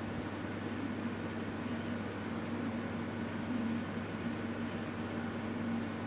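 Gas heater running: a steady hum under an even hiss, unchanging throughout.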